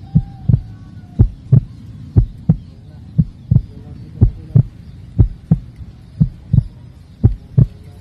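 Heartbeat sound effect: a deep double thump repeating steadily about once a second.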